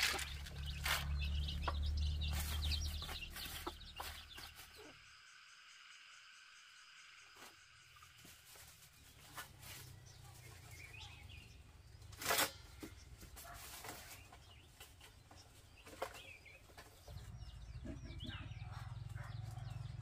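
Chickens clucking and chicks peeping off and on, with a couple of sharp knocks midway.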